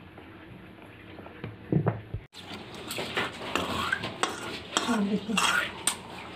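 Metal spoon stirring and scraping thick gram-flour batter in a steel bowl, with repeated clinks of the spoon against the bowl's side. Quieter for the first two seconds, then louder after an abrupt cut.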